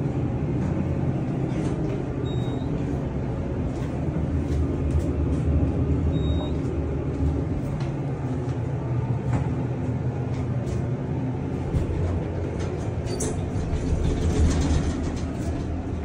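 Elevator car travelling between floors: a steady low rumble and hum from the ride. Two short high beeps sound a few seconds apart, and a few clicks come near the end.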